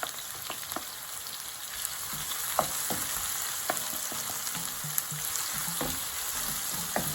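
Chopped seasoning sizzling in hot oil in a pot as it cooks down, with a steady hiss. A spoon stirs through it, clicking and scraping against the pot now and then.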